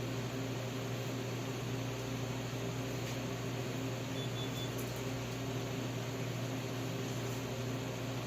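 Steady mechanical hum with a strong low buzz, as from a fan or motor running, with a few faint ticks and a short high triple beep about four seconds in.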